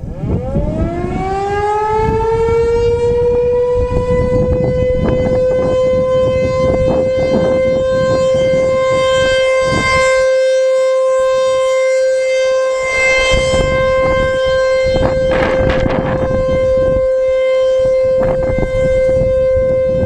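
ASC T-128 electromechanical tornado siren winding up: its tone rises over the first three seconds or so, then holds a steady high pitch. A low, gusty noise runs underneath.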